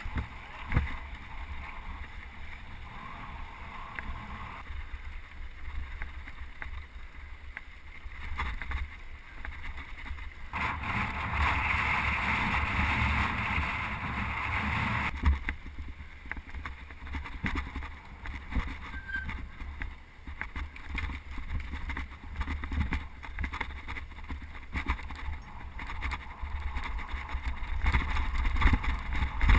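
Wind rumbling on the microphone, with a louder stretch of hiss from about 11 to 15 seconds in.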